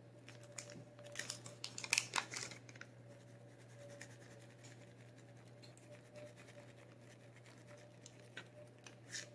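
Small za'atar spice packet being handled and opened: about a second in, a second or so of crinkly scratching and tearing, then only a few faint ticks and rustles over a steady low hum.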